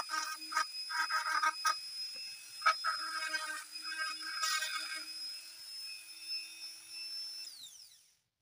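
Flexible-shaft rotary tool running at high speed with a steady high whine, its bit grinding into the centre of a plastic disc in short, stuttering bursts. Near the end it is switched off and the whine falls in pitch as it spins down.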